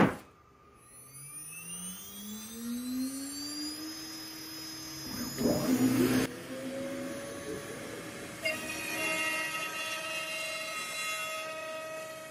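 A sharp click, then a PwnCNC router spindle on an Onefinity Elite Foreman CNC spinning up with a rising whine over about three seconds and settling at a steady pitch. A louder burst of noise comes about five seconds in, and the spindle runs on steadily after it.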